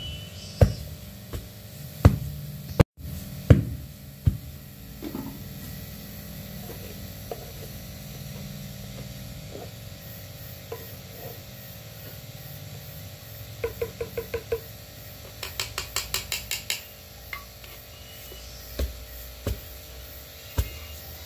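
Wooden pestle pounding rice flour in a mortar: dull thuds at irregular intervals, with two quick runs of light taps midway.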